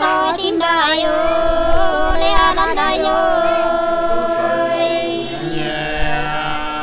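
Unaccompanied Nùng sli folk singing: voices sing a slow, drawn-out melody with wavering ornaments, then hold one long note from about three seconds in until past five.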